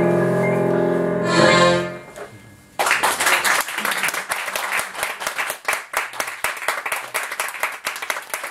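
Accordion and Yamaha CP stage piano hold a final chord that swells and then dies away about two seconds in. After a short pause, a small audience claps until the sound cuts off abruptly.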